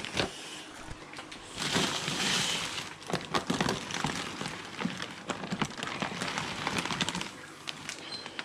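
Plastic fish-transport bags rustling and crinkling as they are handled, with irregular clicks and crackles and a longer, louder rustle about two seconds in.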